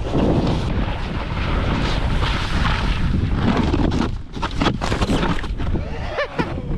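Wind buffeting the microphone over a steady rumble from riding downhill, with a few sharp knocks and rattles about four to five seconds in.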